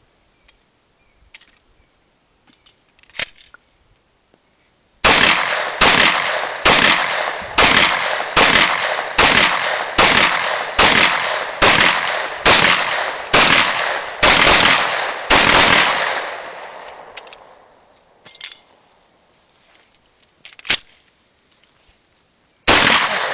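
Grand Power K100 9 mm pistol firing a string of about fifteen shots at a steady pace, roughly one every 0.7 seconds, each shot trailing off in echo. After a pause of several seconds there is a sharp click, and one more shot comes near the end. A few faint clicks come before the first shot.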